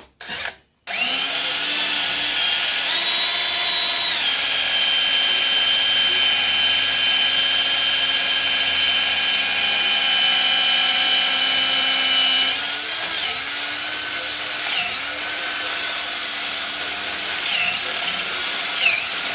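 Electric drill boring a half-inch hole into a pool ball. A short burst, then a steady whine about a second in, its pitch rising around three seconds in and dipping several times near the end as the speed changes.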